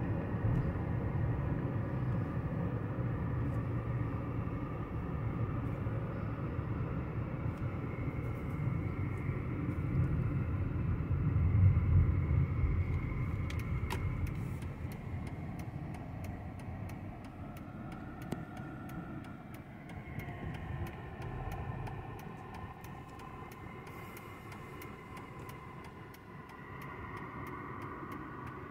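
Cabin sound of a Mercedes E320 CDI turbodiesel on the move: a low engine and road rumble, loudest about twelve seconds in, then dropping off as the car slows for a stop sign. A faint regular ticking runs through the second half.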